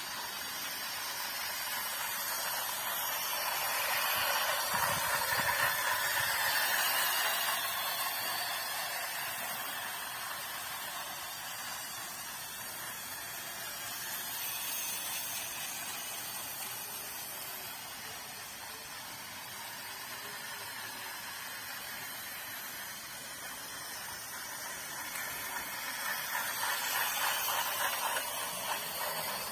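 Battery-powered toy train running along a plastic track, its small motor and wheels whirring steadily, swelling louder twice as it comes nearer.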